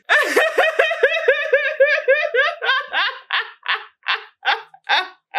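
A person laughing hard: a fast run of high-pitched "ha" bursts that slows into spaced, breathier bursts over the last couple of seconds.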